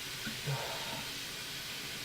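A steady hiss, with a faint low knock about half a second in.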